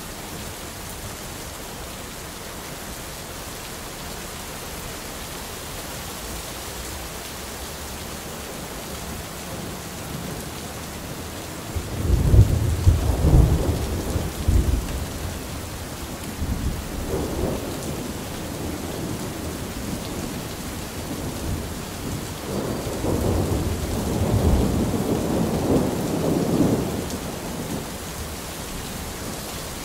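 Steady rain falling, with thunder rumbling over it: a loud rumble a little before halfway, a fainter one shortly after, and a longer rolling rumble later on.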